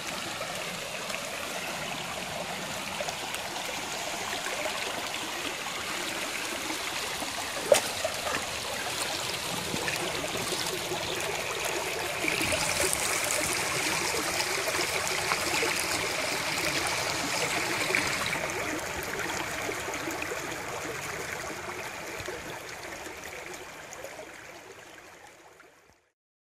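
Shallow creek running over rocks, a steady babbling trickle that gets louder about twelve seconds in and then fades out near the end. A single sharp click is heard about eight seconds in.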